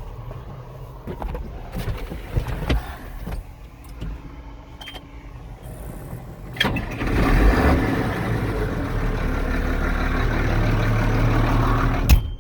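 Farm tractor engine running steadily, with a few light clicks. About halfway through, a much louder rushing mechanical noise starts suddenly, then cuts off with a sharp knock near the end.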